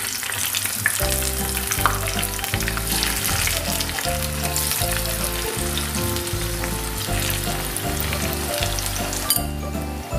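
Marinated chicken pieces deep-frying in hot coconut oil in a pan: a dense, steady sizzle and crackle as more pieces go into the oil.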